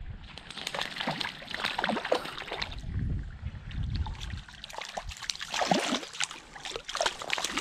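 A small hooked trout splashing and thrashing at the river's surface over steadily rippling water, with many irregular splashes.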